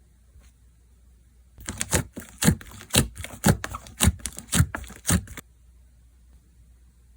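Slime being squeezed and pressed in the hands, giving a run of crackly clicks and pops, the strongest about two a second. It starts a second and a half in and stops suddenly after about four seconds.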